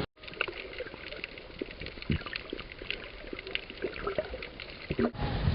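Water splashing and trickling, with many small sharp clicks and ticks scattered through it.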